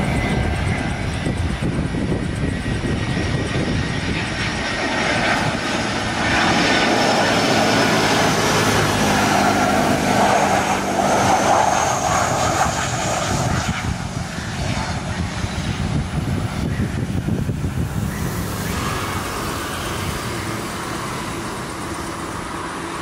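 Jet airliner engines at high power on takeoff: a loud, continuous rushing noise that swells about six seconds in and eases off after about fourteen seconds.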